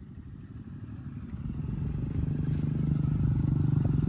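A motor vehicle engine running nearby, its low hum growing steadily louder as it comes closer.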